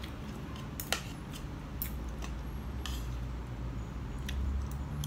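Metal fork and spoon clicking and scraping against a ceramic plate while eating, about seven light clicks spread out, the loudest about a second in.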